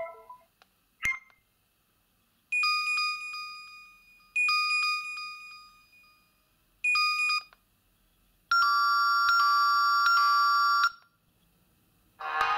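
A myPhone Hammer 3 button phone playing its ringtone and alert-tone previews one after another. A single key click comes about a second in, then two chime tones that ring out and fade, a third that is cut off short, and a steady electronic tone of about two seconds that stops abruptly.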